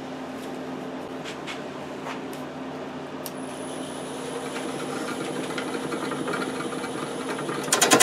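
Laguna Revo 1836 wood lathe running with a black locust bowl blank spinning: a steady motor hum that grows gradually louder, with a thin high whine joining about a third of the way in. Near the end a gouge bites into the spinning locust, a loud rough scraping cut.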